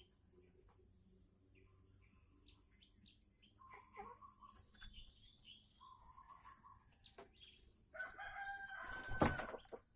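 Sumatran red junglefowl calling: a few short clucks, then a louder call of about a second and a half near the end, with a low thump during it.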